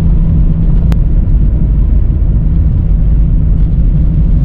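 Cosworth BOB V6 in a Ford Sierra XR4i running steadily under way, a loud, even low drone with a constant engine note and no clear rise or fall in revs. A single short click about a second in.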